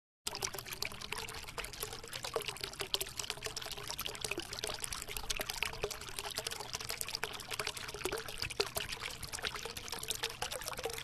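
Small mountain stream trickling and splashing over rocks, a steady run of water full of tiny splashes, cutting in abruptly just after the start.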